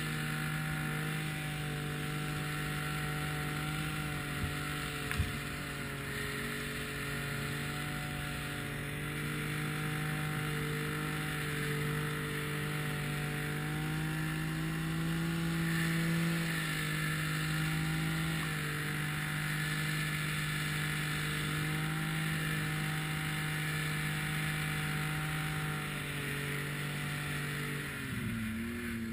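Snowmobile engine running steadily under throttle while ploughing through deep powder snow, its pitch holding nearly level. A sharp knock comes about five seconds in, and the engine note dips briefly and comes back up near the end.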